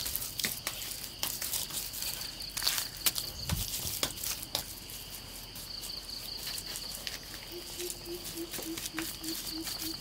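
Hands working wet mud and sticks, with scattered clicks and soft slaps, over insects chirping in bursts. Near the end, a low tone pulses about three times a second.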